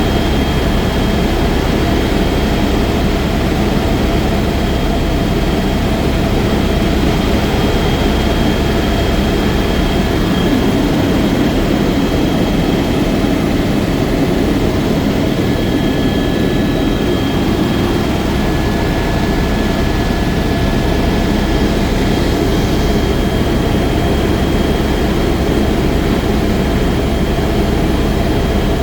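Helicopter's turbine engine and rotor running steadily, a loud even noise with a thin steady whine over a low rumble.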